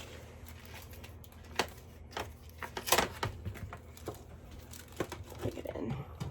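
A few scattered light clicks and taps from objects being handled, over a faint steady hum.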